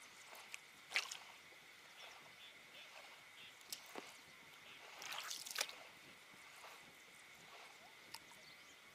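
Small water splashes and drips at the water's edge, a few short sharp ones about a second in, around four seconds and a cluster near five and a half seconds, over a faint steady high hum.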